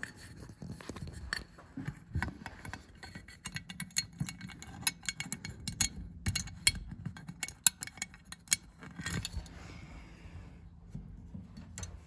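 Irregular clicks, taps and light scraping from handling an Edwards 270 fire alarm pull station up close. They are thickest in the middle and thin out near the end.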